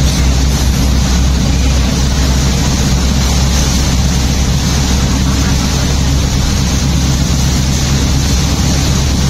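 Steady cabin noise of a car driving on a wet motorway in heavy rain: a low road drone with the hiss of tyres on wet pavement and rain on the car.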